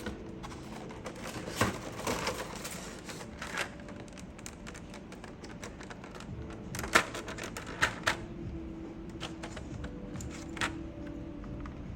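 Irregular plastic clicks and clacks of keycaps and switches on a mechanical keyboard being worked on, with a few sharper clacks about seven and eight seconds in.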